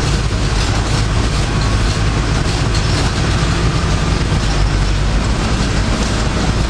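City bus engine running, a steady low rumble with road and cabin noise, heard from inside the bus.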